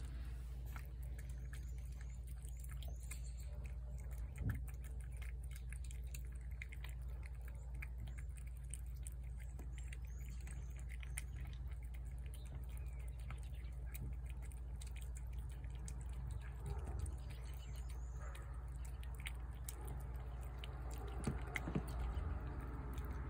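Two cats eating wet chicken cat food from plates: faint, scattered wet chewing and lapping clicks over a steady low hum, with a few faint bird chirps in the background.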